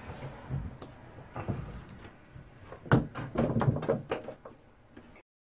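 Plastic cut-in outlet box being fitted into a drywall cutout: a few scattered knocks and clicks of plastic against the wallboard, the loudest about three seconds in, with a quick run of them shortly after, then the sound stops abruptly near the end.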